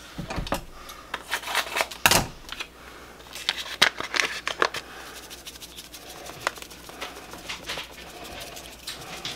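A ranch seasoning packet crinkling and tearing as it is opened and shaken out, with a dull knock about two seconds in, then softer, sparser rustling.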